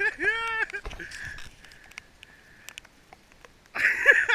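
A person's short, high-pitched shouts: one drawn-out call near the start and a louder, rougher shout near the end.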